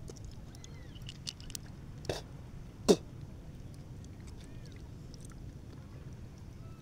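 A person chewing and handling raw seafood, with a few small clicks and one sharp click just under three seconds in, over a low steady background noise.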